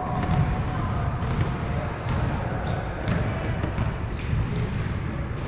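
Basketball bouncing and sneakers squeaking on a hardwood gym floor during play, as scattered short thumps and high squeaks over the steady din of the hall.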